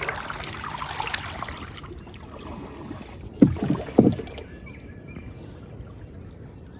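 Water splashing and trickling as a hand trails through river water alongside a wooden boat, with two dull thumps a little past halfway.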